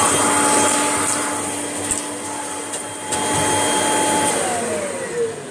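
Hoover Junior upright vacuum cleaner running at full speed as it picks up dog-biscuit debris, with a few sharp ticks of bits hitting the machine. About four seconds in it is switched off, and the motor whine falls steadily in pitch as it spins down.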